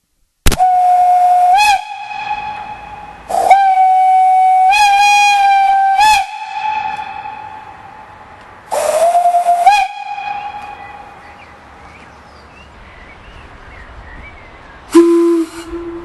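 Steam whistle blown on compressed air: three loud toots on one pitch, short, long and short, each trailing off in echoes. Near the end a lower-pitched whistle sounds.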